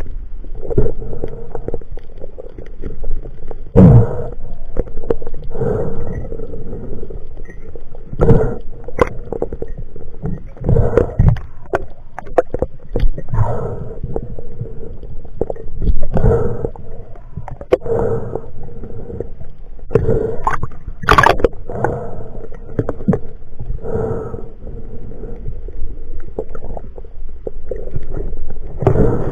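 Muffled, rhythmic whooshing and gurgling of water around a spearfisher's camera as he handles and dispatches a speared dogtooth tuna, surging every second or two. A few sharp knocks stand out, the loudest about 21 seconds in.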